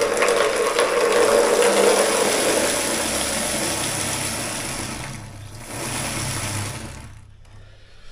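Water from a wall tap pouring into a plastic bucket, filling it. The flow dips about five seconds in, comes back, and stops about seven seconds in, with a low hum underneath in the later part.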